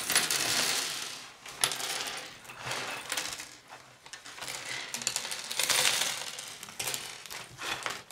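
Large paper instruction sheet rustling as it is unfolded and a plastic bag crinkling, in swells of about a second each, while small plastic K'nex pieces clink and clatter against each other and onto a wooden table.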